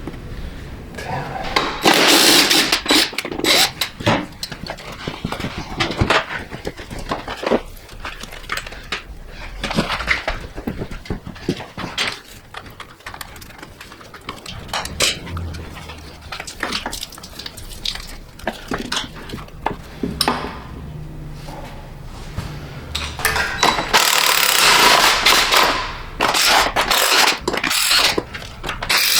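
Engine parts being worked on with hand tools: scattered metal clinks, knocks and rattles. There are two longer stretches of loud rushing noise, about two seconds in and again near the end.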